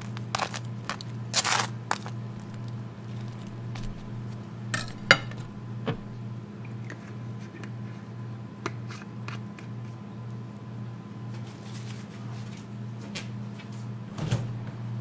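Scattered clinks, taps and clatter of dishes and cutlery being handled, over a steady low hum. There are several clicks in the first two seconds and the loudest knock about five seconds in, then sparser light ticks and a duller knock near the end.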